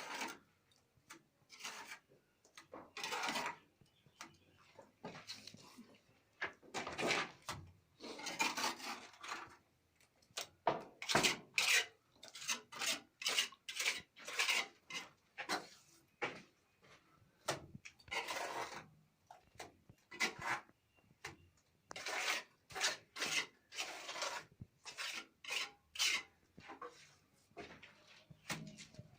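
A steel trowel scraping and spreading cement plaster, in irregular strokes of up to about a second each.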